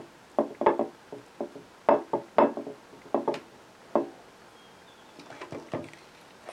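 Metal spoon spreading peanut butter on sliced bread, knocking and clinking in about a dozen sharp taps with a short ring over the first four seconds. Softer taps and scrapes follow about five seconds in as the spoon digs back into the peanut butter jar.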